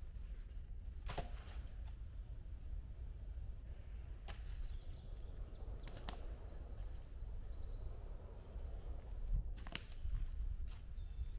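Four sharp wooden knocks and cracks a few seconds apart, as branches are handled or snapped, over a low steady rumble. A faint high bird trill sounds near the middle.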